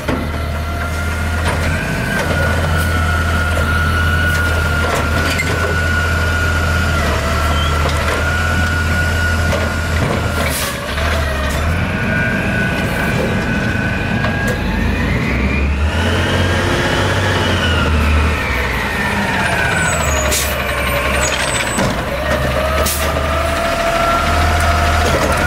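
Scorpion automated side-loader garbage truck running, a steady diesel drone under the whine of its hydraulics as the arm works a cart. About two-thirds through, the whine rises in pitch and falls back once. A few sharp knocks come through.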